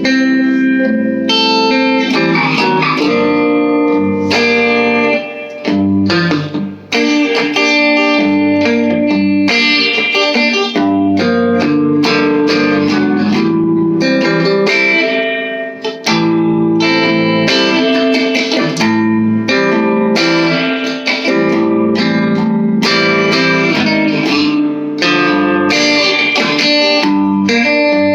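Electric guitar played through a small all-tube amp with the neck and bridge pickups combined in series, a continuous passage of chords and single notes, each new note struck over the ringing of the last.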